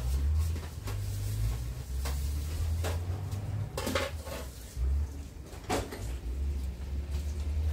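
Metal cookware being handled: a few sharp clinks and knocks, a couple of them ringing briefly, over a steady low rumble.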